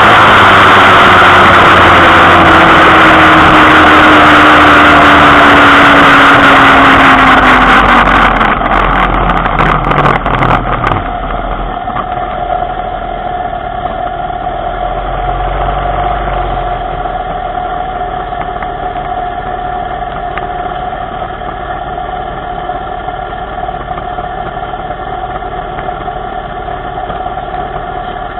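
Small motorbike engine running along at speed with heavy wind rush, its pitch falling slowly as it slows down. About a third of the way in the rush drops away and the engine settles to a steady idle.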